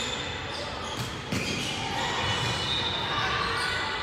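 Volleyball rally in an echoing gym: a sharp smack of a hand on the ball about a second and a quarter in, over a background of court noise.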